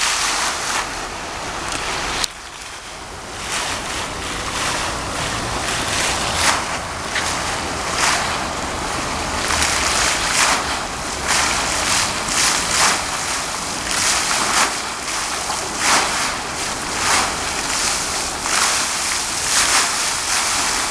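A lit fountain's many vertical water jets spraying and splashing into the basin: a loud, steady rush of falling water that swells again and again as the jets pulse. The rush drops briefly about two seconds in.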